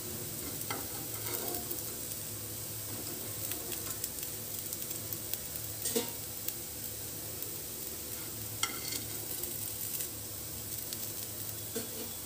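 Oil sizzling steadily in a non-stick frying pan around shallow-frying squares of chana (chickpea) cake, with a few short clicks and scrapes of a metal utensil against the pan as pieces are lifted out.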